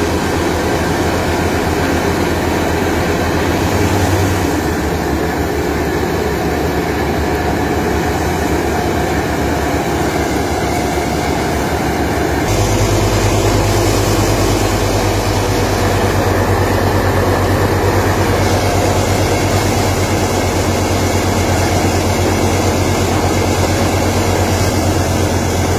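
Belt-driven threshing machine running steadily as bundles of crop are fed into it: a loud, continuous mechanical drone. About halfway through the sound shifts abruptly and a deeper hum becomes stronger.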